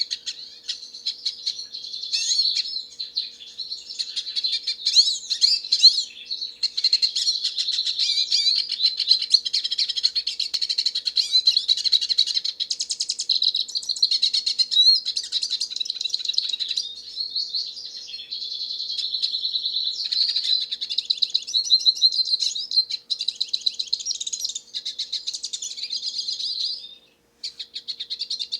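Hooded siskin (black-headed siskin) singing a long, rapid twittering song of quick warbled notes and trills, with a short break near the end.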